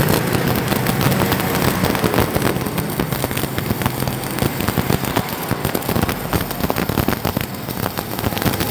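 Stick-welding arc crackling steadily as a 3.2 mm electrode burns a bead on thick steel plate, run from a Weldcom Zarc 3200 stick welder.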